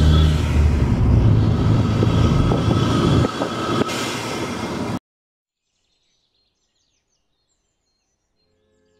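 Boosted Cadillac ATS heard from inside the cabin while driving: a heavy, steady engine and road rumble that eases off about three seconds in, then cuts off abruptly about five seconds in.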